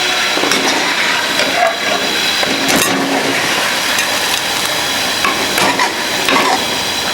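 Chicken masala with onions sizzling steadily in hot oil in a cooking pot, with a few light clicks of the stirring spoon against the pot.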